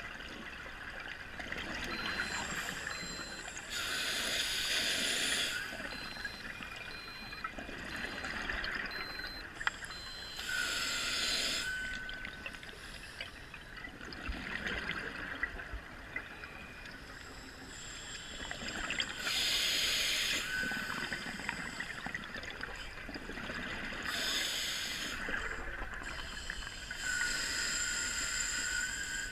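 Scuba diver breathing through a demand regulator: a quieter hiss on each inhale and a loud rush of exhaled bubbles about every five to eight seconds, five breaths in all.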